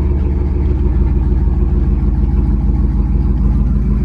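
Chevrolet Silverado's engine idling steadily with a loud, deep exhaust note, heard from inside the cab.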